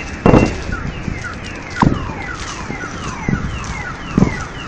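Car alarms sounding a repeating falling chirp, about three a second, set off by the meteor's air blast wave. A few sharp thumps cut through, the loudest about a quarter second in.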